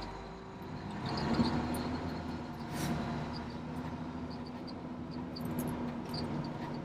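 Fire engine running on the road, a steady low engine drone heard from inside the cab, swelling slightly about a second in.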